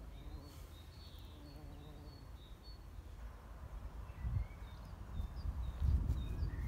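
Small birds chirping with short, high calls over a quiet outdoor background. In the last couple of seconds a low rumbling noise grows louder.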